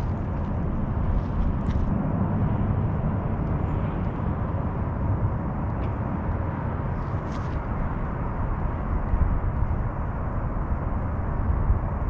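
Wind buffeting the microphone as a steady low rumble, with a few brief faint hissy noises about a second in and again about seven seconds in.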